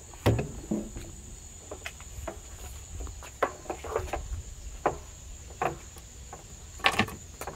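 Crickets chirring in a steady high-pitched drone, with irregular knocks and thumps over it, the loudest pair near the end.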